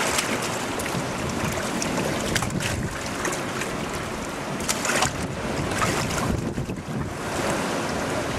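Seawater sloshing and splashing as pieces of moray eel are rinsed by hand in a rocky tide pool, a few sharper splashes among it, over steady surf and wind noise on the microphone.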